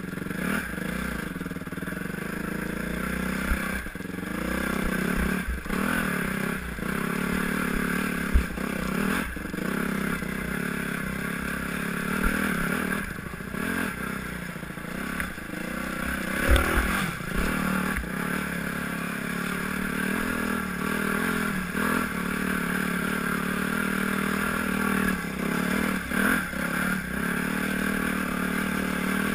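Yamaha YZ250F's single-cylinder four-stroke engine running under a rider on a rough trail, the revs rising and falling again and again with the throttle. The bike's chassis clatters and scrapes over the ground, with two sharp knocks from rocks or bumps about 8 and 16 seconds in.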